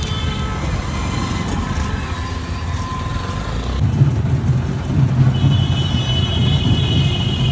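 Street traffic: vehicle engines running close by, with the low engine rumble growing heavier about four seconds in and a high steady tone entering soon after.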